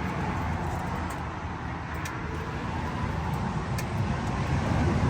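Steady rumble of highway traffic going past.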